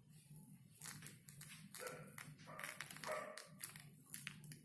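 Faint small clicks and rustles of small decorative stones being poured and pressed into place by hand, over a low steady hum. A faint pitched sound comes twice in the background, about two and three seconds in.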